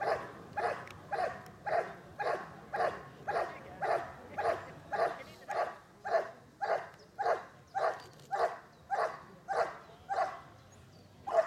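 A Dutch Shepherd barking steadily at a helper in a bite suit, about two barks a second, the hold-and-bark part of protection work. The barking stops near the end.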